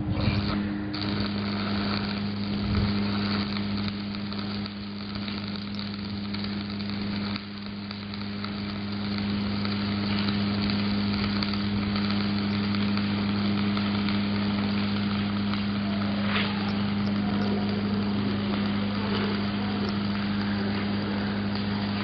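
Stick (shielded metal arc) welding arc crackling and sizzling steadily as a bead is run, with a steady electrical hum from the welding machine underneath.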